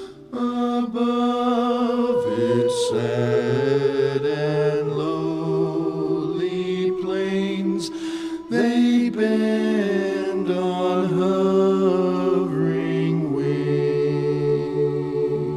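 Choral music: a choir singing sustained harmony with orchestral accompaniment, part of a Christmas carol arrangement.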